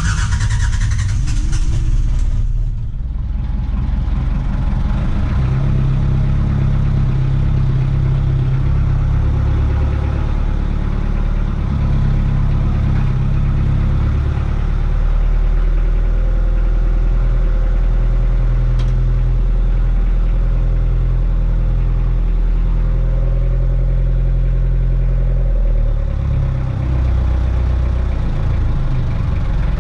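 Fishing pumpboat's inboard engine, just started: a loud rush of noise in the first two or three seconds, then a steady low, deep running sound whose pitch shifts a couple of times.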